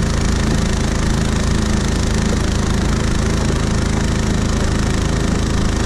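Anbull 7.5 hp 223cc single-cylinder four-stroke engine running steadily at speed under load, driving a long-tail mud-motor surface drive on a jon boat during its break-in. A steady hiss runs above the engine note.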